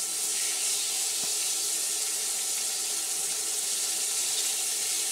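Steak sizzling in a hot frying pan on a portable gas stove, a steady hiss that starts as the meat goes in. The pan is hot enough that the heat needs turning down.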